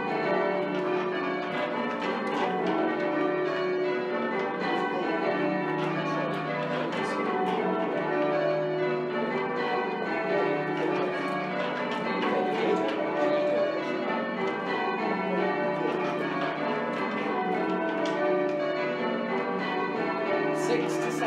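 Change ringing on a ring of eight church bells with a 24 cwt tenor: the bells strike one after another in steadily changing order, row after row without a break. Some bells, the 7th above all, are slightly oddstruck, which the ringer puts down to the tall tower swaying.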